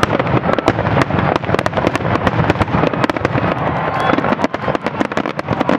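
Aerial fireworks shells going off in a dense, rapid barrage of overlapping bangs, many per second, over a continuous low rumble: the closing stretch of a fireworks show.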